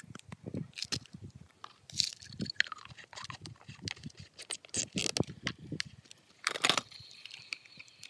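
Irregular clicks, knocks and scrapes of hands handling a chainsaw's plastic housing, its caps and controls; the engine is not running.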